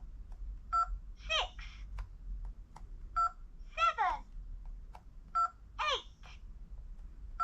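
VTech Swipe & Discover toy phone answering button presses: each time a short electronic beep, then a brief recorded voice clip with a swooping pitch. This happens three times, about two seconds apart, with faint button clicks in between.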